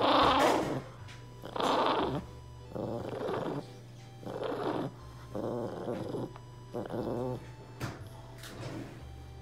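Small dog growling over and over, short growls about once a second, the first one loudest, set off by a hand coming near it as it lies over a sneaker.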